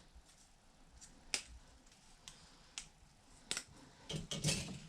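Plastic model-kit parts handled and pressed together, giving a few sharp separate clicks: one about a second in, another past the middle, and a cluster of clicks with some handling rustle near the end.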